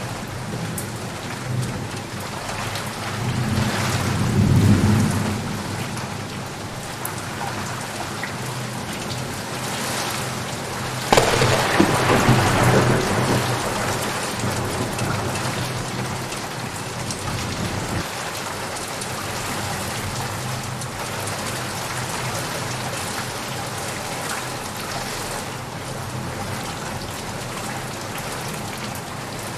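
Steady rain falling, with thunder: a low roll of thunder swells and fades about four seconds in, then a sharp thunderclap about eleven seconds in rolls on for a few seconds before the rain carries on alone.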